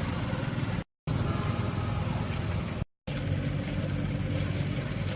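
Steady low engine rumble, like a motor vehicle running nearby, that cuts out to silence twice for a moment, about one second in and about three seconds in.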